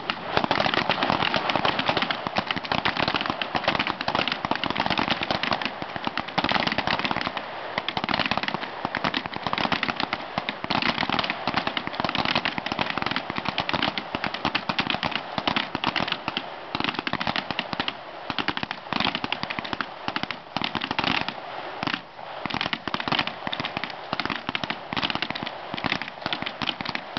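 Pistol fire in rapid, overlapping succession, a dense crackle of shots that keeps going with only brief dips.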